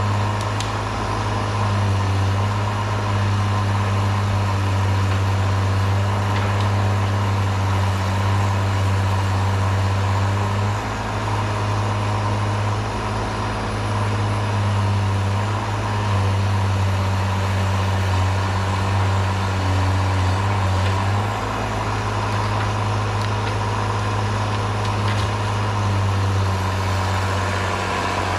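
Diesel engine of a Cat 318B excavator running steadily with a low hum, its level shifting a few times.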